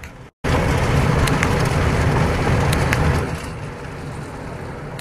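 Automatic car wash brushes and water spray scrubbing over the car's windscreen and body, heard from inside the cabin. The noise is dense and loud with scattered clicks, starts after a brief dropout near the start, and eases to a lower level about three seconds in.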